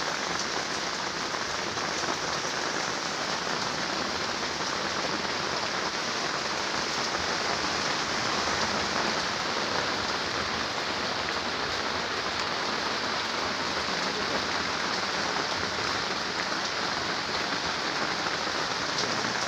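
Steady, even rain-like hiss with no changes or distinct events.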